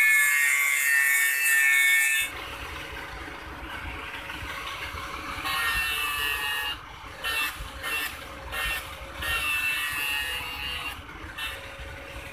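Electric angle grinder grinding the steel blade of a sickle to thin and sharpen a dull, thick edge: a loud, high hissing whine while the wheel bears on the metal, dropping suddenly about two seconds in. From about halfway the wheel touches the edge in short passes, the whine coming and going several times.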